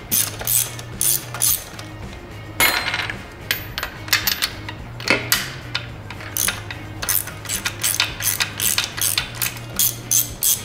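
Hand ratchet on a long socket extension clicking as the stern drive's fasteners are undone. The clicks come in short runs, sparse at first, then steady at about three or four a second from about halfway through. There is a short rattle about two and a half seconds in.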